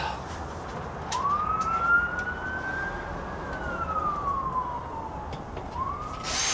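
Emergency vehicle siren wailing: one slow rise and fall in pitch over about four seconds, with the next rise starting near the end. A loud rush of noise cuts in just at the end.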